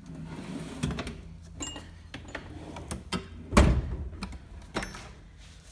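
Metal tool chest drawers being shut and pulled open, with clicks and rattles and one loud thunk about three and a half seconds in.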